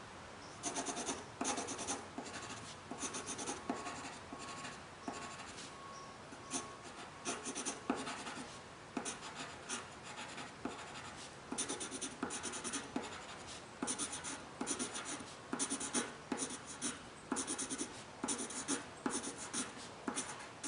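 Pencil scratching on paper in many short, irregular strokes as words are written and lines and a curve are drawn.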